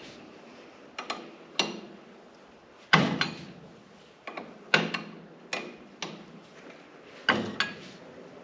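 A hand wrench working a stiff nut off a tractor's sway-block bolt makes about ten sharp metallic clacks at uneven intervals. The nut binds on rough threads at the end of the bolt.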